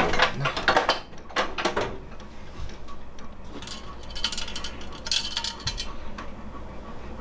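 Sharp clinks and knocks of handled metal parts, then a brief scraping rattle of thin brass about four to five seconds in, as the brass windscreen of an Optimus Svea 123R petrol stove is fitted over the burner.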